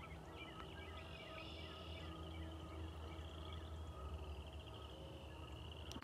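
Faint chorus of frogs calling: a continuous high, pulsing trill, with short chirps scattered over it.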